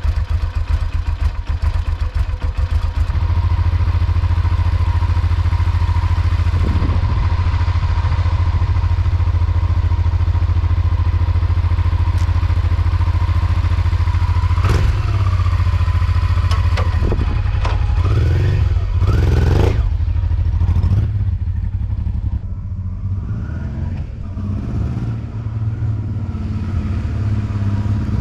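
Honda XL600V Transalp's V-twin motorcycle engine running steadily. A little past the middle its pitch rises and falls a few times, and it runs quieter near the end.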